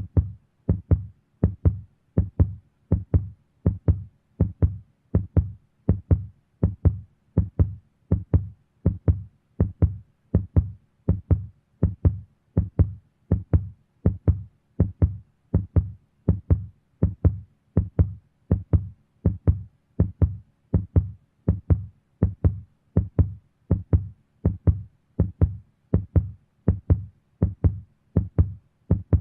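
Heartbeat sound: a steady double thump, lub-dub, repeating about once a second, deep and booming with a short click on each beat.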